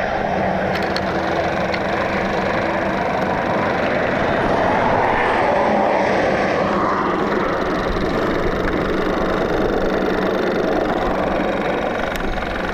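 Steady wind rush over a helmet-mounted microphone, with a motorcycle engine running evenly at highway speed underneath.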